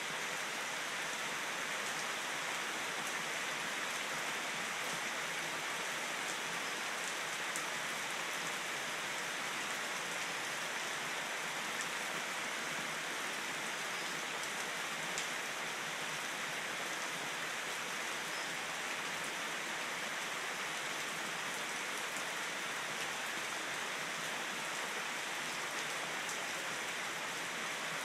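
Heavy rain falling steadily on dense tropical foliage and a paved driveway, an even hiss with occasional sharper ticks of single drops.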